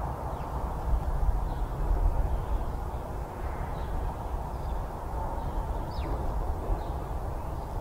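Steady low rumble of outdoor background noise, with a few faint, short chirps from small birds; one chirp about six seconds in sweeps downward.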